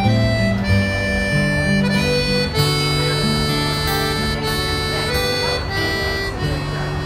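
Live Irish folk band playing an instrumental passage: a reedy melody of held notes over acoustic guitar accompaniment.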